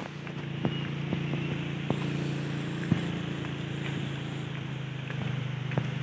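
A small engine running at a steady speed, a low even hum, with scattered footsteps on a dirt path.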